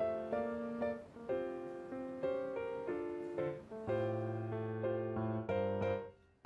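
Background piano music playing a gentle run of notes and chords. It fades away just before the end.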